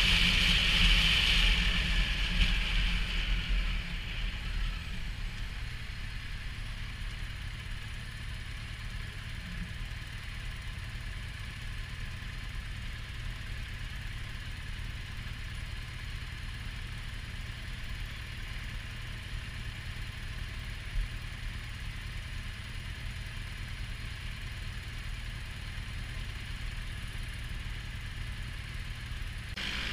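Motorcycle engine coming down off the road with wind rush fading over the first few seconds, then idling steadily while stopped. One short click about 21 seconds in.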